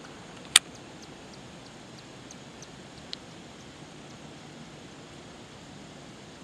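One sharp click about half a second in, the loudest thing here, and a smaller click about three seconds in, with a few faint ticks between, over a steady low outdoor hiss.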